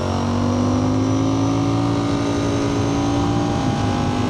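Ducati Panigale V4 motorcycle engine running on the move, its pitch rising slowly, then dipping briefly and settling again near the end.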